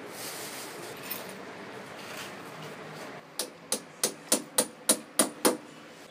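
Hammer driving a metal mounting bolt for a water heater into a drilled hole in a plastered wall: eight sharp metallic strikes about three a second, starting about halfway through.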